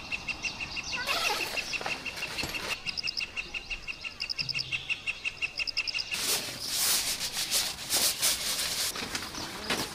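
Outdoor ambience with a steady run of high, evenly repeated chirps, about five a second, and a few brief bird calls. About six seconds in it cuts to louder rustling and crinkling of a nylon tent floor and a sleeping pad being handled.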